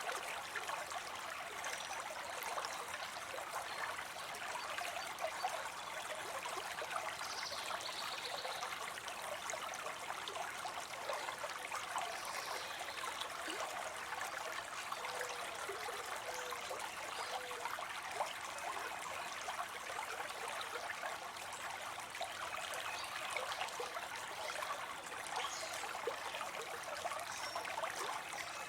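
Water spilling and falling into a pond: a steady, unbroken trickling splash.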